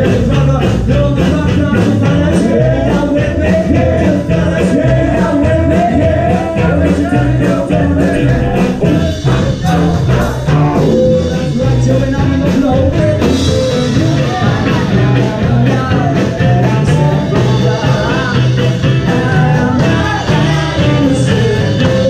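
Upbeat song with singing and a steady beat, playing loudly throughout.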